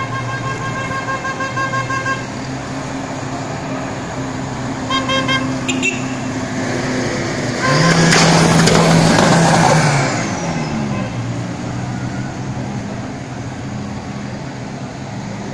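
Old Soviet Moskvich and Zhiguli cars driving past in a parade, sounding their horns: rapid repeated toots at first, then a couple of short honks. About eight seconds in, one car passes close and loud for about two seconds, and its engine note drops as it moves away.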